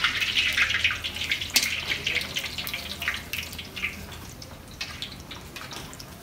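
Puri deep-frying in hot oil in a karahi: a dense sizzle full of small crackles, loudest at the start and dying down over the next few seconds.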